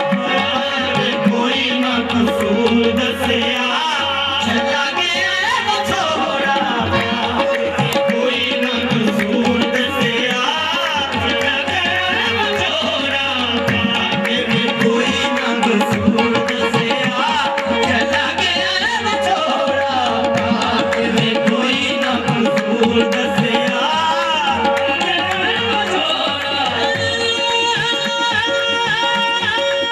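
Live qawwali: lead and chorus voices singing over harmoniums and tabla, the harmonium holding a steady drone and the tabla keeping a fast, continuous rhythm.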